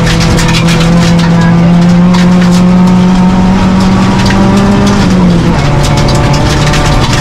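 Proton Neo rally car's four-cylinder engine pulling hard, heard from inside the cabin: its note climbs slowly, then drops with an upshift about five seconds in and holds. Gravel from the loose road surface clicks and cracks against the car's underside throughout.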